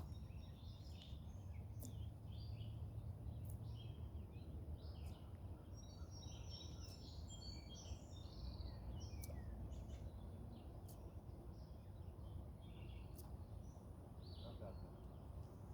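Faint outdoor ambience: many short bird chirps and calls, busiest in the middle, over a steady low rumble.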